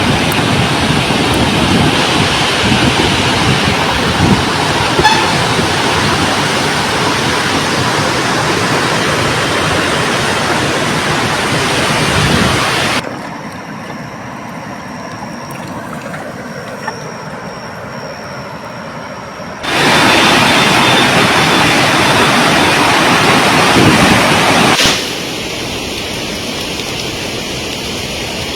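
Rushing floodwater of a river in spate, a loud steady noise that changes abruptly with cuts between shots: a quieter stretch in the middle with a faint steady high whine, loud again, then quieter near the end.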